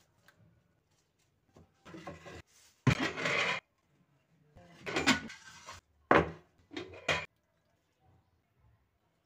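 A metal ladle and an aluminium pot knocking and scraping together as chicken and sauce are ladled out: about five short bursts of clatter, the loudest about three seconds in.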